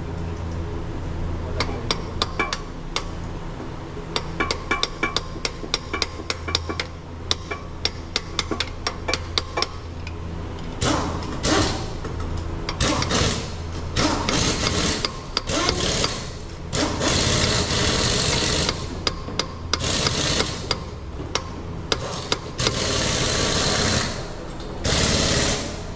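Metal tools working on a car's engine belt pulley, whose bearing is worn: first a quick irregular run of sharp metallic clicks and taps, then from about ten seconds in, several bursts of loud hiss lasting a second or two each, over a steady low workshop hum.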